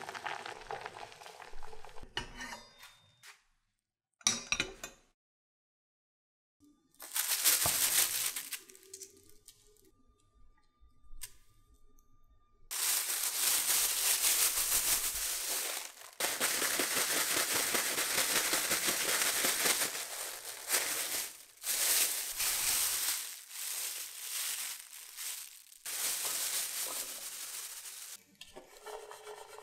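Plastic bag rustling and crinkling as diced boiled potato is shaken in it with cornstarch to coat the cubes. It starts with a few short bursts, then becomes long loud stretches of steady crinkling from a little before halfway, turning more broken towards the end.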